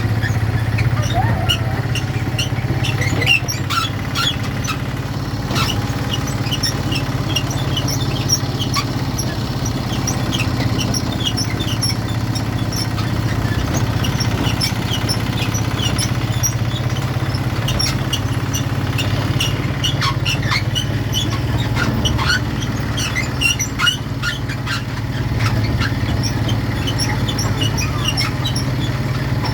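Ride-on toy train running, a steady low hum with many short high squeaks over it.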